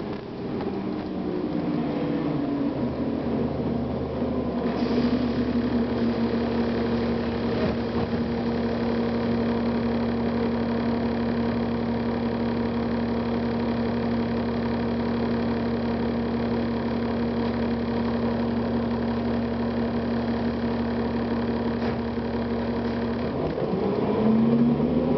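Cummins ISL diesel engine of a 2009 Gillig Advantage transit bus idling steadily at one pitch, with a higher hiss joining about five seconds in. Near the end the engine revs up as the bus pulls away.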